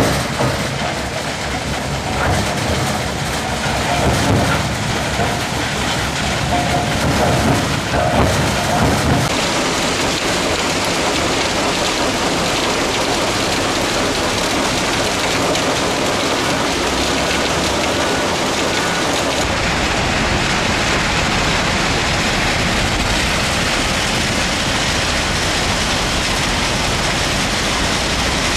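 Crushed iron ore pouring off a conveyor belt into a steel hopper with the conveyor running: a loud, steady, rain-like rushing clatter. The sound changes abruptly about nine seconds in, losing its low rumble, and again about twenty seconds in.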